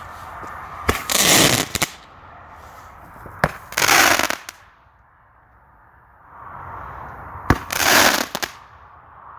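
Vulcan Crackling Bullets fire goblet firing: three times a sharp pop launches a shot that breaks into a dense crackle lasting about a second, with a steady hiss in between.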